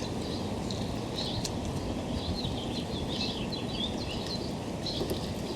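Birds chirping and twittering over a steady low rush of outdoor background noise.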